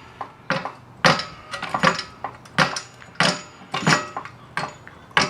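Automotive floor jack being pumped by hand, a sharp metallic clank with a short ring at each stroke, about nine evenly spaced strokes. The jack is under load, pressing a bent solid-steel basketball rim back toward round.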